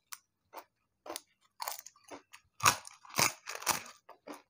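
A crisp papad (lentil wafer) being bitten and chewed: a run of about ten sharp crunches, the loudest three in the second half.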